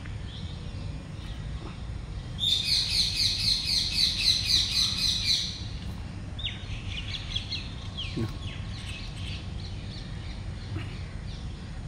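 High, shrill animal chirps: a loud, quick run of repeated chirps starting about two and a half seconds in and lasting about three seconds, then fainter scattered chirps.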